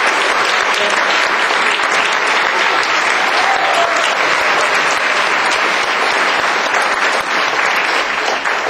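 Audience applauding: a large crowd clapping loudly and steadily.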